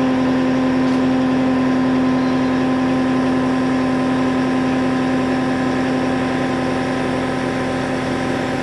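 Skid steer engine running at a steady speed while the bucket is pressed down to raise the machine off the ground; a steady drone with a strong low tone.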